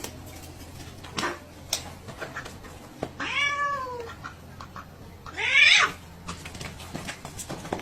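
A cat meowing twice: a drawn-out meow about three seconds in that falls in pitch at its end, then a shorter rising meow about two seconds later.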